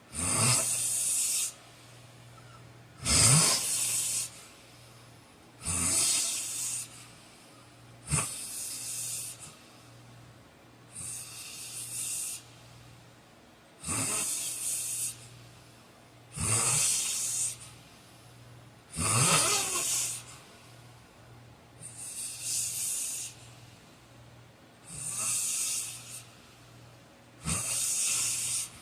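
A man snoring in a steady rhythm, one loud, noisy snore about every two and a half to three seconds. Some snores open with a sharp rattling stroke and all trail off in a breathy hiss.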